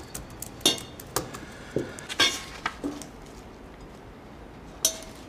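Metal salad tongs clinking against a glass salad bowl and plate while salad is served: a run of sharp clinks, some ringing briefly, over the first three seconds, then one more near the end.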